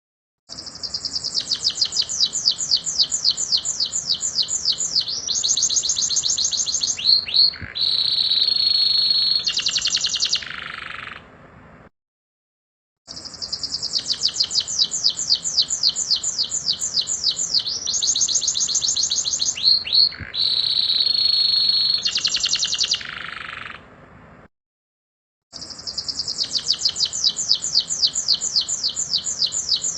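Domestic canary singing long rolling trills of rapid repeated high notes, the phrase changing pace partway through and ending in a held buzzy note. The same song phrase plays about every twelve seconds, each time after a second of dead silence, as a looped recording.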